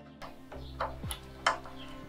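Background music with a beat: deep kick drums that drop in pitch and sharp snare hits over a steady low backing.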